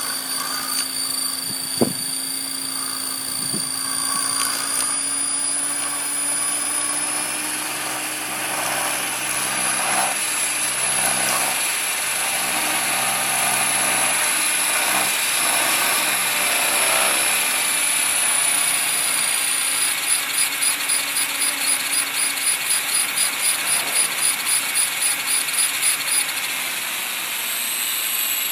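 Align T-Rex 500 ESP electric RC helicopter running up to hover, its motor and rotor whine slowly rising in pitch. About 20 seconds in the sound starts pulsing evenly, roughly four times a second, for several seconds: the bad vibration the owner is asking about, which he suspects comes from the tail or the ESC.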